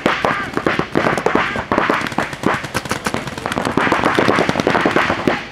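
Paintball markers firing rapidly, many shots a second from several guns at once, overlapping into a continuous popping stream.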